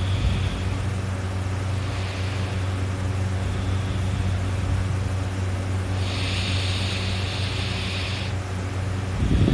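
A steady low hum with a few soft hissing breaths of a sleeping person, the longest about six seconds in, then a loud, low snore starting just before the end.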